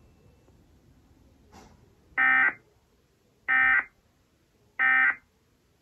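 Emergency Alert System end-of-message data tones: three short, identical bursts of screeching digital data about a second and a half apart, marking the end of the alert. They play through a television speaker and are picked up by a phone.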